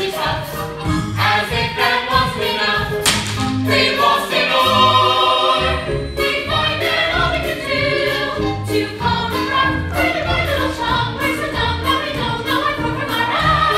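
Musical-theatre cast singing a show tune together over an instrumental backing track with a steady bass beat.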